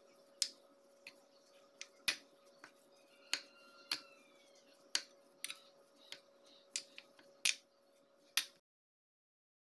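Metal spoon clinking against a glass bowl while mixing mashed potato: about a dozen sharp, irregular clinks over a faint steady hum. The sound cuts off suddenly about a second before the end.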